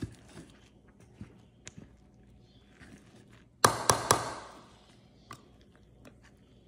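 Kitchen utensil knocks while mixing a thick rice-flour and coconut-milk batter: faint scattered clicks, then three sharp knocks close together about halfway through.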